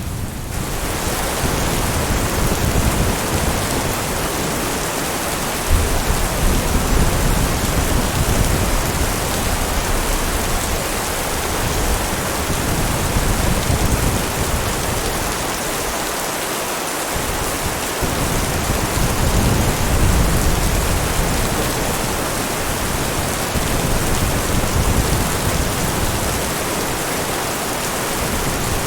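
Heavy rain falling in a steady, dense hiss, with low thunder rumbling underneath that swells and fades several times.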